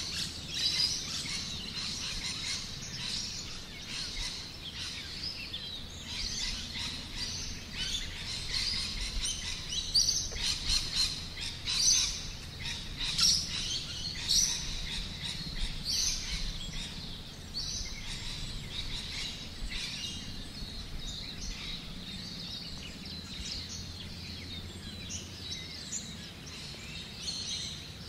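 A dense chorus of birds chirping and calling, with several louder calls about ten to fifteen seconds in.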